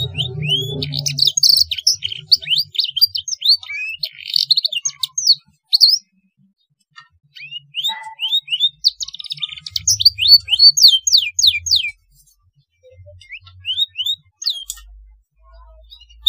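Young domestic canary singing blackthroat-style phrases: rapid series of short, rising whistled chirps, in two long runs with a pause between them and a brief phrase near the end.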